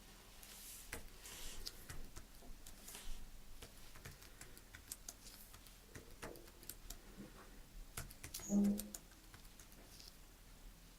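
Irregular faint clicking of typing on the hard plastic keys of a rollable Bluetooth keyboard, with one short low hum about two-thirds of the way through.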